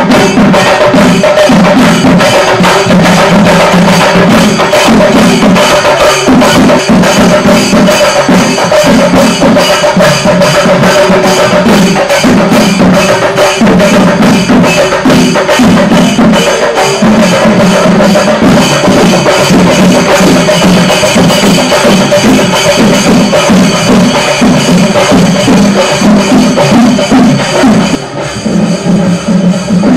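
Loud festival procession music: rapid, dense drumming with many strokes a second over steady pitched notes. The sound drops and thins about two seconds before the end.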